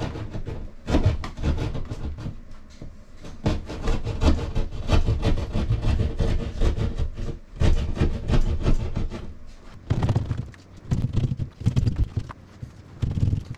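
Hand drywall jab saw cutting through water-damaged drywall in quick, uneven back-and-forth strokes, with a few short pauses.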